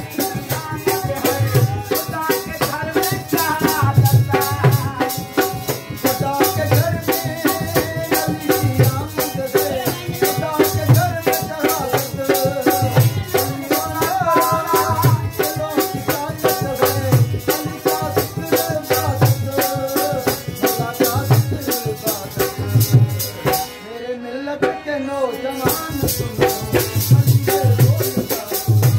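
Live folk music: a harmonium melody over a drum beating about once a second, with a fast, even rattling percussion on top. The rattle drops out for about a second near the end, then comes back.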